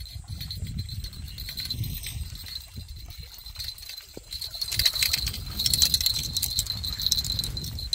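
A hooked fish is hauled out of the water and lands on the dry bank. From about halfway in there is rustling and crackling as it thrashes against shrubs, grass and cracked mud, over a steady rumble of wind on the microphone.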